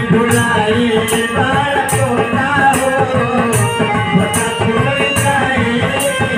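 Devotional bhajan music on harmonium with a dholak rhythm, and a jingling percussion marking a steady beat about two or three times a second.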